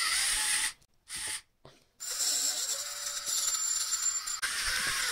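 Small DC gear motors of a hobby robot arm whirring in short runs. Two brief spurts, then a longer run of about four seconds starting about two seconds in, with a thin steady whine.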